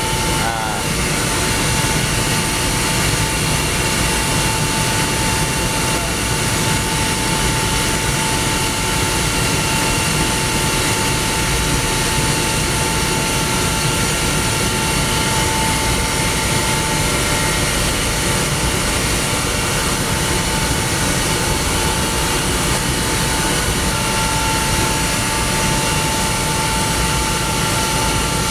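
Rotary screw air compressor running steadily: a dense mechanical noise with a constant high whine. A second, higher whine joins near the end.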